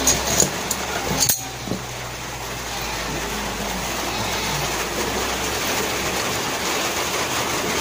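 A few light clicks of metal engine parts being handled in the first second, over a steady rushing noise that runs on after a sudden break.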